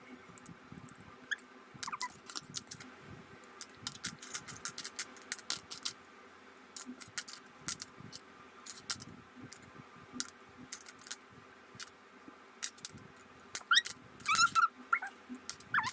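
Small plastic Rubik's cube pieces clicking and snapping as they are handled and fitted together, a scattered run of sharp clicks. Near the end come loud high squeaky calls that slide up and down in pitch.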